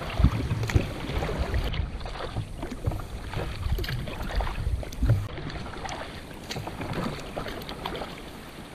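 Water splashing and lapping against a sea kayak's hull as it is paddled along, with irregular low buffeting of wind on the microphone.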